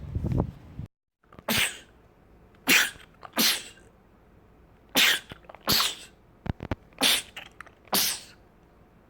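A man sneezing over and over in quick succession: about seven short, sharp sneezes, roughly a second apart.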